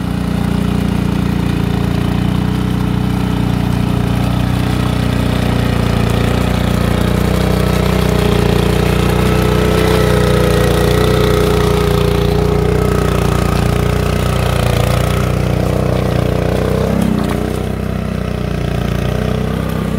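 Mini tiller engine running steadily, dropping slightly in level near the end.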